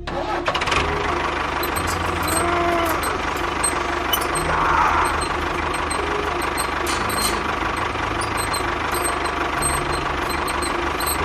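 Steady engine-like running of a miniature construction vehicle, with a pulsing low rumble and a few brief squeaks about two seconds in.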